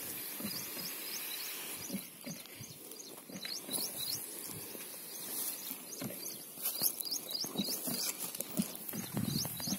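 Footsteps on dry, cloddy tilled soil, with birds chirping in quick runs of short repeated notes in the background.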